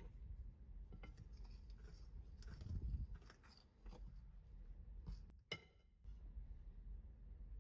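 Quiet kitchen handling sounds of baking preparation: faint scraping and light clicks, with one sharper click about five and a half seconds in.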